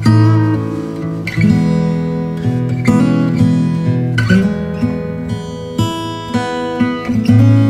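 Background music: acoustic guitar playing plucked and strummed chords, with a new chord struck about every second and a half.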